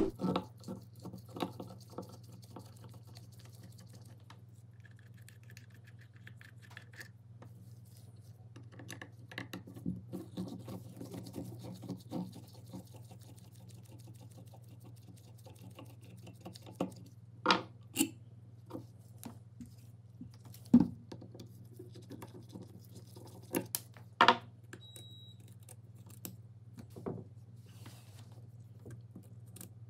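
Disassembly of an antique cast-aluminium electric drill: a screwdriver and small metal parts clicking, scraping and tapping on a towel, with a sharp knock at the very start and a few more sharp knocks in the second half. A steady low hum runs underneath.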